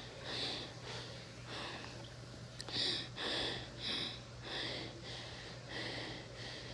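Rhythmic breathing close to the microphone, short breathy puffs at about two a second.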